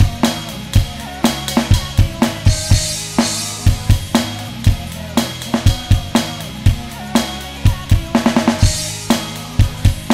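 Alesis Nitro Mesh electronic drum kit played to a steady rock beat of bass drum, snare and cymbals, over the song's backing music. A cymbal crash comes about two and a half seconds in, and a quick fill of rapid hits comes near the end.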